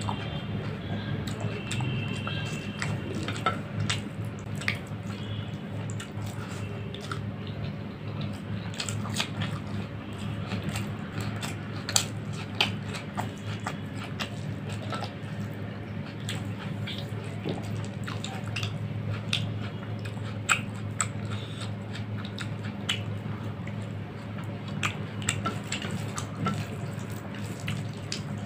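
Fingers kneading and mixing rice with wet curry on a plate: a run of sticky, wet squishing and small smacking clicks over a steady low hum.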